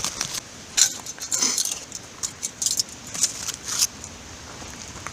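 A series of short metallic clinks and scrapes, loudest about a second in, as foil-wrapped food is set back on a metal grate over campfire coals.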